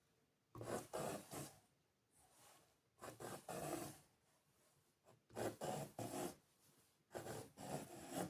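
An art tool scraping and rubbing across paper in about five separate strokes, each lasting up to about a second.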